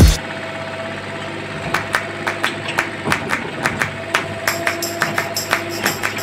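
Background music: the heavy bass beat drops out at the start, leaving a held tone, and a regular, even percussion beat comes back in after about a second and a half.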